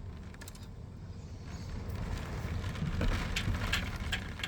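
Storm-force wind gusting against a parked car, heard from inside the cabin as a low rumble that swells about two seconds in, with a few light knocks and rattles.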